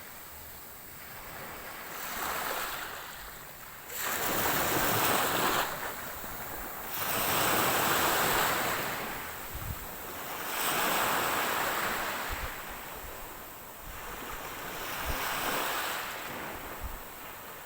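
Ocean waves breaking and washing up the shore, the noise swelling and falling back every three seconds or so, with low rumbles of wind on the microphone.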